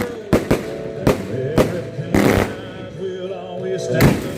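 A string of firework shots bursting one after another, irregularly spaced, with a heavier burst near the end, over background music.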